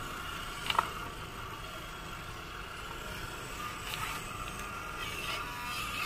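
Small electric motor and gearbox of a 1/12-scale RC Willys Jeep whining steadily as it tows a brick-loaded trailer, with one sharp click a little under a second in.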